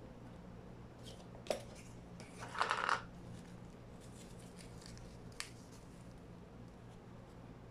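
Small handling sounds as items are picked up off a table: a sharp tap, a short rustle about a second later, and a faint click in the middle, over a low steady hum.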